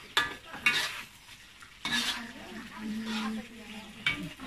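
A spatula scraping and knocking against a wok, several sharp strokes, while eggplant sambal fries and sizzles in it.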